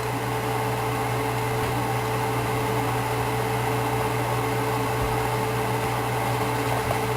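Steady low hum and hiss of a running fan, with a fainter higher tone over it.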